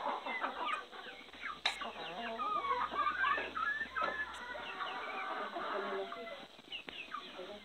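A flock of chickens clucking, many short overlapping calls, with one sharp tap about a second and a half in.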